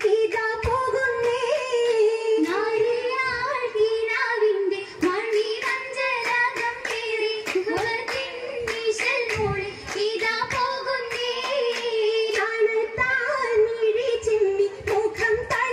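A group of girls singing an Oppana song in unison, with sharp handclaps kept up in rhythm under the voices.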